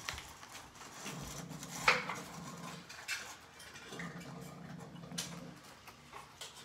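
A crowd of cats eating from bowls on a tile floor: soft chewing and lapping with scattered small clicks of food bowls, and one sharp clink about two seconds in.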